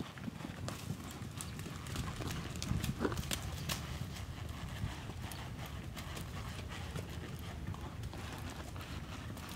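Horse's hooves hitting dirt as it is ridden at a canter, a run of dull thuds and clicks over a low steady rumble.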